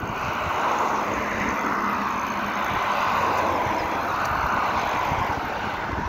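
Steady rushing noise of wind over the phone's microphone while riding an electric bicycle, with a gusty low rumble.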